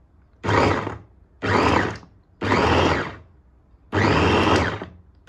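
Silver Crest electric meat and vegetable chopper run in four short pulses, its motor whirring for under a second each time with brief pauses between, chopping a little deboned chicken. Pressing the button in short pulses rather than holding it down keeps the motor from overheating.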